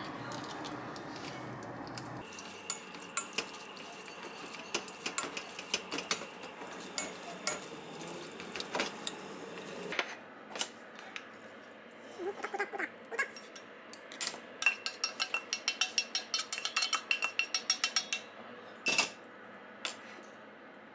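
Kitchen utensils clinking and scraping against a stainless steel pot and an enamel bowl as instant noodles are stirred and served. There are scattered sharp clinks, a short squeak a little past halfway, then a quick run of light taps, about three or four a second, near the end.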